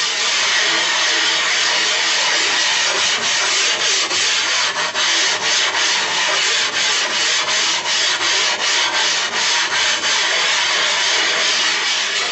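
A glass muller grinding in circles on a glass plate through a wet slurry of silicon carbide grit: a steady, loud, gritty scouring. From about three seconds in it pulses evenly, about two strokes a second. The abrasive is roughening the glass surface to give it tooth for grinding pigments.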